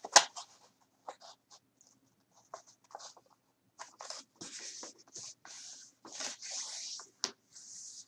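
A sheet of card being folded and creased flat on a table: short papery rustles and longer scraping as a hand rubs along the fold, with a sharp tap just after the start.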